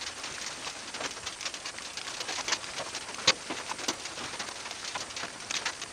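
Light rain: scattered raindrops tapping irregularly, with one sharper drip about three seconds in.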